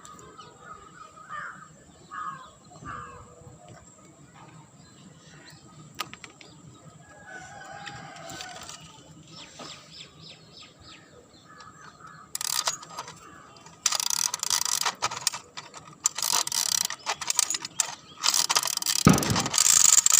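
Rapid mechanical clicking and rattling of a small battery-powered toy mechanism. It starts about twelve seconds in and gets louder near the end. Three short caws are heard faintly near the start.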